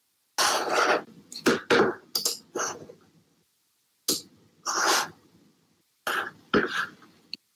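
A person coughing and clearing their throat: about ten short, harsh bursts in three groups.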